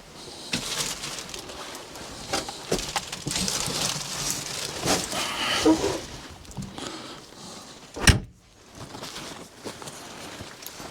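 Work handling noises: irregular shuffling and rustling with light knocks, and one sharp knock about eight seconds in.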